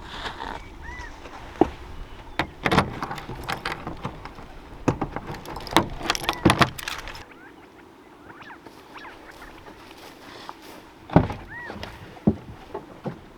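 Irregular knocks and clicks, like gear being handled, over a low wind rumble that drops away about seven seconds in. Twice there is a short squeak that rises and falls.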